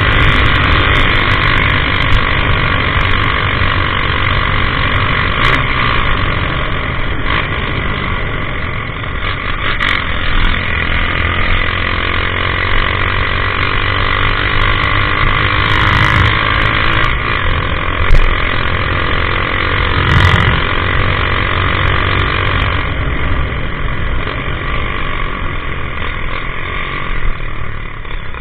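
Honda CG 150 Titan's single-cylinder four-stroke engine running loud through a modified twin 2-in-1 exhaust, its pitch drifting slowly up and down, with a couple of short sharp knocks.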